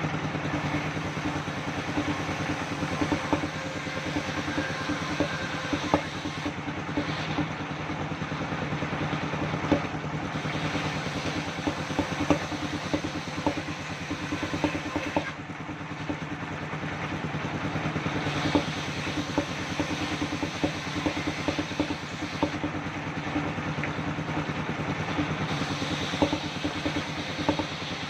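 Engine-driven circular sawmill running steadily, with many short clicks and knocks of clatter over the engine's hum.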